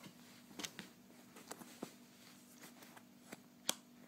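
Faint, scattered small clicks and taps of a MagSafe charger connector being handled at a MacBook, the sharpest click about three and a half seconds in.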